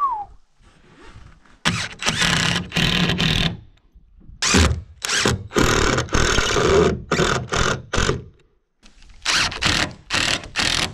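Power drill/driver running in repeated bursts of one to two seconds, driving screws through the doubled 2x4 top plate into the wall framing.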